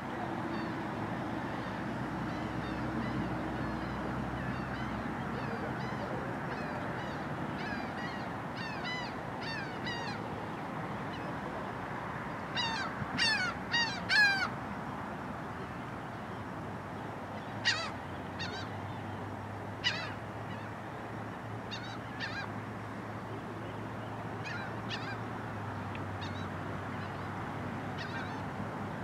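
Birds calling: a run of harsh calls that builds to a loud flurry in the middle, then single calls every two or three seconds, over a steady background hiss.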